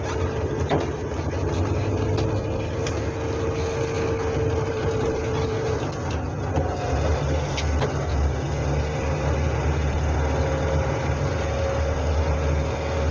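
A Hillman Super Minx's four-cylinder engine running under way with road and tyre noise, heard from inside the cabin, with a faint steady whine in parts.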